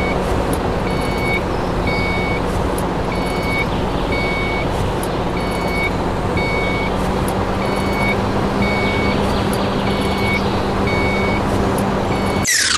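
Vehicle reversing alarm beeping about once a second over a steady engine drone, cutting off suddenly at the end.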